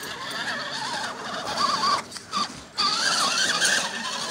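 Electric motor and gear train of a radio-controlled rock crawler whining, the pitch wavering up and down with short throttle inputs. It drops out briefly a little after two seconds in, then whines again.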